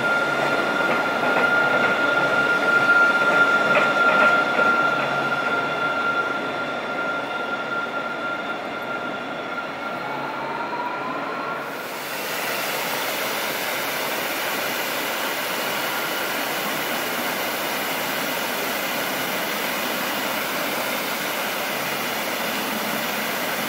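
Alstom Citadis tram passing close, its running noise carrying a steady high whine, loudest a few seconds in and then fading away. About halfway there is an abrupt change to the steady, even hiss of splashing fountain water.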